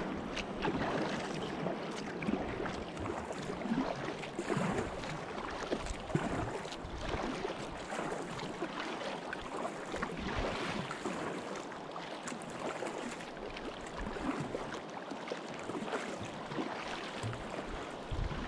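Moving river water rushing and splashing: a steady wash with many small, irregular splashes.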